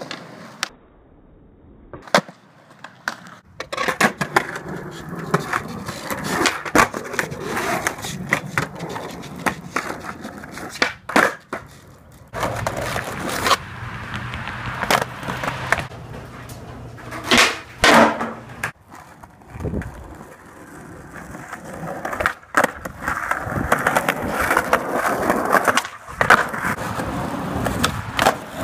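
Skateboards rolling over concrete and asphalt with a steady wheel rumble, broken many times by the sharp pops of tails and the slaps and clacks of boards and wheels landing.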